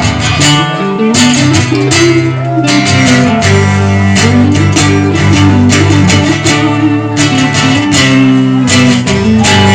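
Instrumental break of a country song, led by strummed and picked guitar, with no singing.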